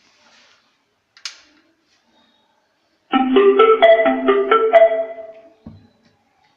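Bluetooth speaker playing a short marimba-like chime, a quick run of bright notes that starts about three seconds in and fades after about two and a half seconds. It is preceded by a faint click and followed by a soft thump.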